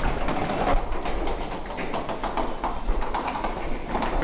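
Footsteps and a wheeled suitcase rolling across a hard tiled floor: a quick, uneven run of clicks and taps over a low rumble.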